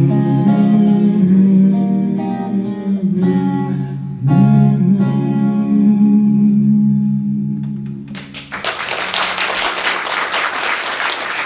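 Guitar playing the closing chords of a song, a last chord struck about four seconds in and left ringing until it fades. Audience applause then breaks out and carries on to the end.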